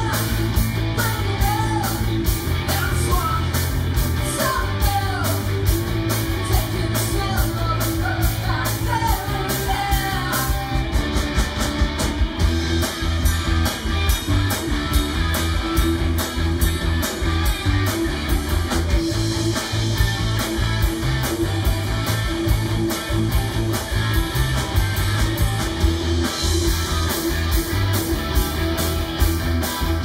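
Live rock band: a woman singing lead over electric guitars, bass guitar and a drum kit with regular cymbal strikes. The singing stops about eleven seconds in and the band plays on without vocals.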